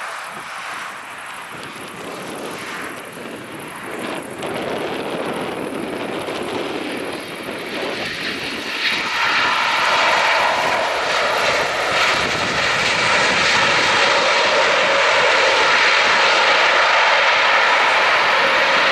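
Boeing 777's twin GE90 jet engines on landing: a steady jet rush on short final, then about halfway through a sudden, much louder rise as the engines spool up for reverse thrust after touchdown, held loud to the end.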